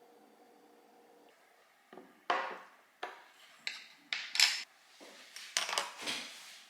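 A string of short, sharp knocks and clatters, about eight of them, from objects being handled and set down, starting about two seconds in.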